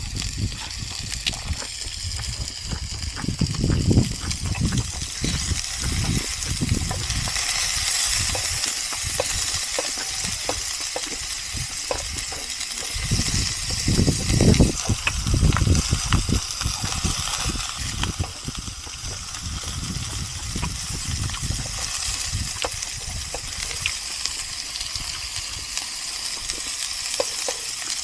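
Food sizzling as it grills in a pan, a steady high hiss, with irregular low thumps and rumbles of handling, strongest about a third and half of the way in.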